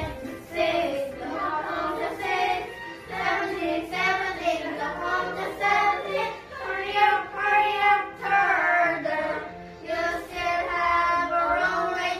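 Children singing an English counting song about an animal race, with lines like "Sixth, sixth, the cow comes in sixth" and "Hurry up, hurry up, Turtle!", over backing music.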